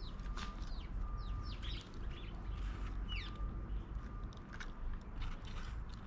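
Many quick, high, falling bird chirps mixed with sharp clicks and knocks as grey go-away-birds flap, land and peck at fruit on a wooden feeder, over a low rumble.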